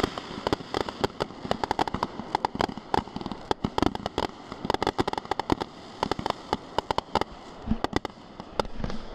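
Fireworks going off in quick succession: a dense run of sharp bangs and crackles, several a second.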